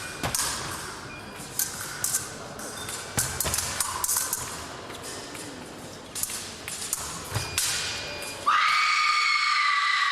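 Sharp clicks and knocks of épée blades and fencers' footwork on the piste. About eight seconds in, the electric scoring machine's buzzer sounds a loud steady tone for about two seconds, signalling a registered touch.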